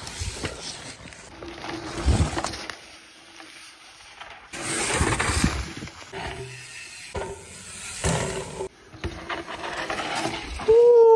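Mountain bike tyres rolling and skidding through loose dirt on a trail corner, in a few short takes that change abruptly. Near the end comes a loud, short shout that falls sharply in pitch.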